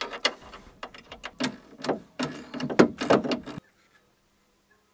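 Plastic and metal clicks and rattles from a BMW E36 inside door handle assembly and its latch linkage being handled and fitted into the door, a rapid string of sharp clicks that stops abruptly about three and a half seconds in.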